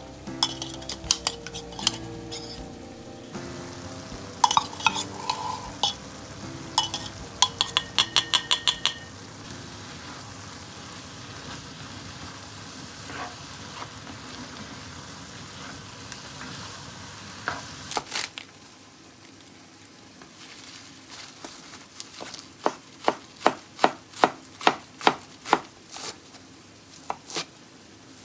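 Ground meat and vegetables with curry powder sizzling in a cast-iron Staub braiser, stirred with a spatula that scrapes and knocks against the pan. About two-thirds of the way through it switches to a knife chopping spinach on a cutting board: a run of quick, even chops about three a second, then a couple more.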